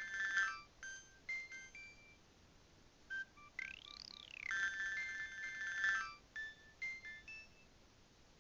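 A Nokia 7200 polyphonic ringtone playing through the phone's speaker. It is electronic and repeats about every four and a half seconds: a quick sweep up and back down in pitch, a bright held chord of bleeping tones, then a scatter of short single beeps.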